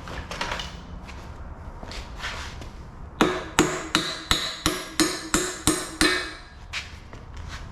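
A hammer striking metal in a quick run of about nine blows, roughly three a second, each blow ringing briefly. Lighter scraping and handling noises come before the blows.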